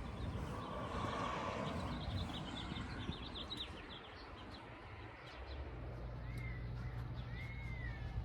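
Birds chirping: a quick run of short high chirps a few seconds in, then two slurred whistles near the end. A steady low rumble comes in about halfway through.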